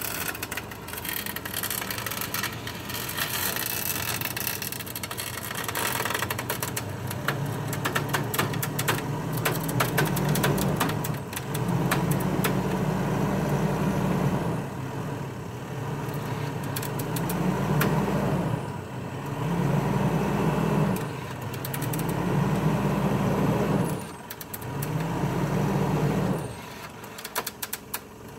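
Mitsubishi Pajero Sport's front-bumper electric winch hauling the vehicle up a slope on its cable, running in stop-start pulls of about two seconds each with short pauses, about seven times; its hum rises as each pull starts and drops as it stops. The first few seconds hold only a light crackle of small clicks before the winch starts.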